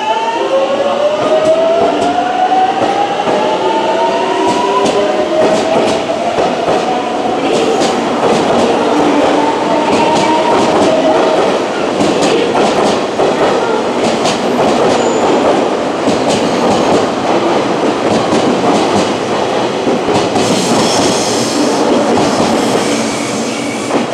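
JR Kyushu 813 series electric train pulling out and accelerating past: the inverter and traction motors give a whine that rises in pitch over the first few seconds, then the wheels run over the rails with repeated rail-joint clicks.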